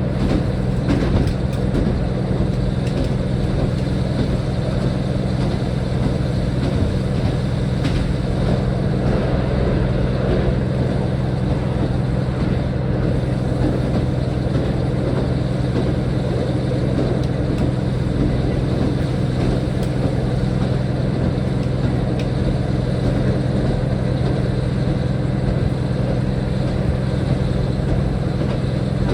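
A diesel train running steadily, with a constant low engine hum over an even running noise.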